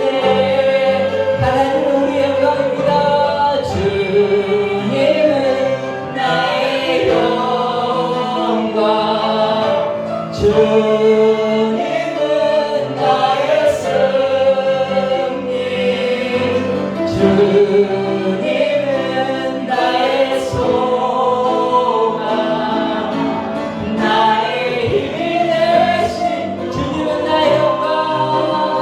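Group singing of a worship song with instrumental accompaniment, held notes sliding between pitches, loud and continuous.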